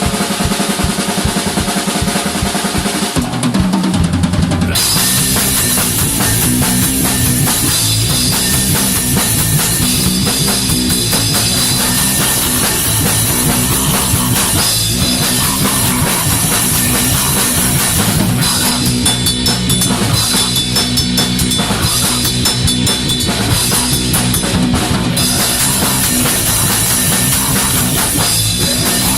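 Loud heavy band music. It opens with rapid, even drumming, low instruments come in around three seconds, and the full band with crashing cymbals plays on from about five seconds.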